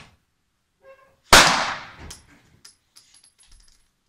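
A single pistol shot about a second and a half in: a sharp crack followed by a ringing decay that dies away over most of a second.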